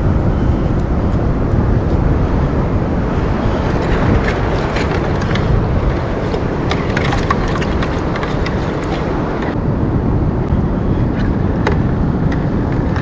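Wind buffeting the microphone over surf on an ocean beach, a steady low rumbling noise, with a few scattered short clicks.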